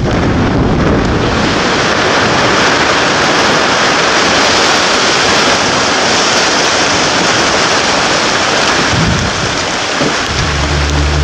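Loud, steady roar like thunder and heavy rain, with no single bang standing out. Music with low sustained tones comes in about ten seconds in.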